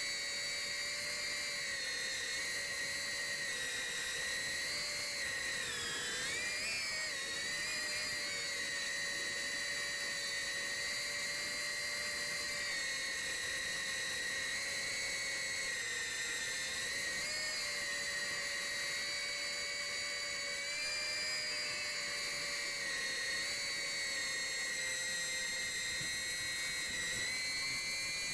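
Brushless motors and propellers of an FPV hexacopter whining steadily in flight. The pitch wavers with throttle and dips and recovers about six seconds in.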